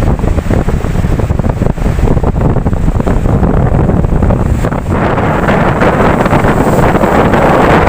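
Ocean waves on a shore: a steady low rumble of surf, then about five seconds in a wave breaks and washes in with a louder, brighter hiss.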